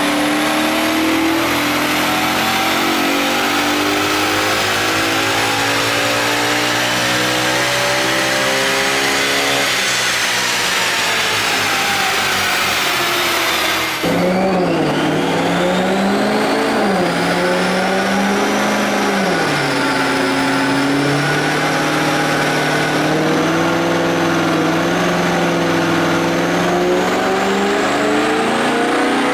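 Audi RS4 B8's 4.2-litre V8 exhaust while driving, the engine note climbing slowly under acceleration. About halfway through the sound cuts abruptly to another run, where the engine pitch rises and falls several times as it revs and eases off.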